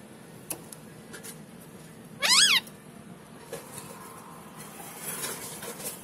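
Pet rose-ringed parakeet giving one loud call about two seconds in, rising and then falling in pitch, with a few faint clicks around it.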